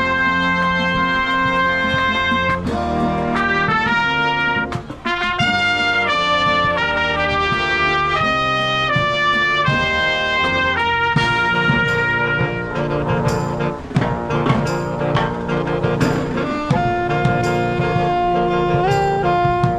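Marching band of trumpets, saxophones and sousaphones playing a lively tune, a trumpet leading the melody over a bass line, with a brief break about five seconds in. About halfway through a steady beat comes in, about one hit a second, as the saxophones take the lead.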